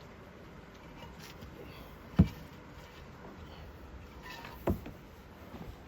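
Two heavy knocks about two and a half seconds apart: support blocks being set down in place to steady a jack.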